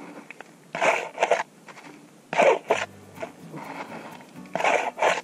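Plastic prospecting scoop scraping and digging into stony, gravelly soil, three times, about a second, two and a half seconds and nearly five seconds in.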